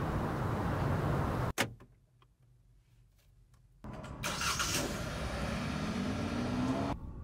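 A steady hiss broken by one sharp knock, then a quiet pause with a few faint clicks. A car engine is then started: a burst of starter noise, then the engine catching and revving with a rising pitch, cut off abruptly near the end.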